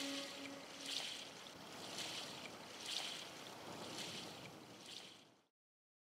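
Faint surf on a sandy beach, a soft hiss that swells about once a second, cutting to silence near the end. The last note of the music dies away at the start.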